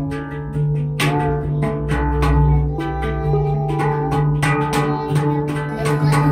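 Hang drum (handpan) music: hand-struck, ringing steel notes, several a second, over a steady low drone.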